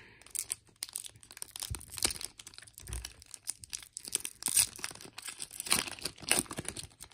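Foil wrapper of a Panini Player of the Day trading-card pack crinkling and tearing as it is pulled open along its seam, in irregular sharp crackles.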